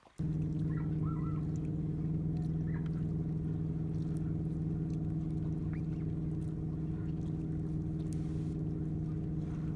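An engine running steadily at a constant pitch. It comes in abruptly, at full level, a moment after the start.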